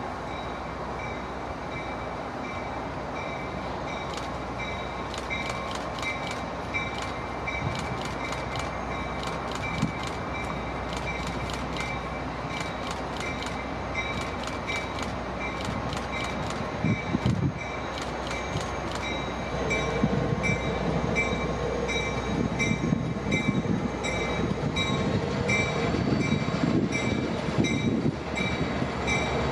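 A pair of Caltrain diesel locomotives, led by EMD F40PH 901, rolling slowly along the track with their diesel engines running and a steady high whine over them. Irregular metallic clicks come in the first half. From about 20 seconds in the sound grows louder as the engines draw near, with a held squeal of wheels on rail.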